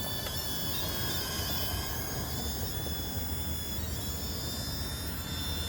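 Small toy quadcopter drone's electric motors and propellers whining steadily as it hovers, the several high-pitched tones wavering slightly as the motors adjust speed.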